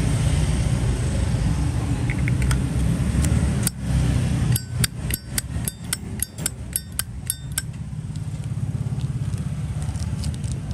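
Zippo lighter being worked by hand: about a dozen sharp metallic clicks over three seconds, starting a few seconds in, from the hinged steel lid snapping open and shut and the flint wheel. A steady low rumble sits underneath.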